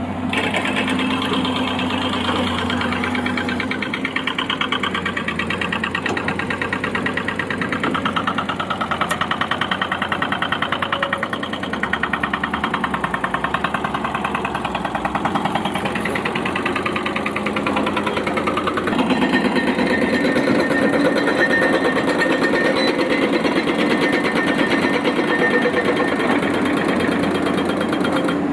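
Excavator's diesel engine running steadily with a fast, even clatter, getting a little louder about two-thirds of the way through.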